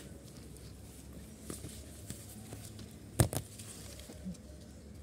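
Eggplant plants being handled while picking: faint rustling of leaves and stems with a few light ticks, and one sharp snap about three seconds in.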